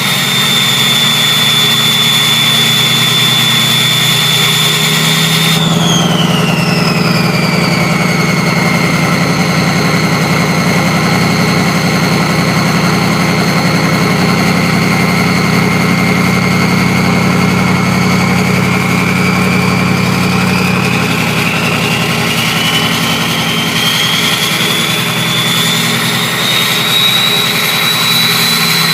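6.0 Powerstroke V8 turbo-diesel running with a loud high-pitched whistle from its '03 turbocharger. The whistle holds steady, drops sharply about six seconds in and glides down to a lower pitch as the engine slows, stays there, then climbs slowly back up near the end as the revs rise again.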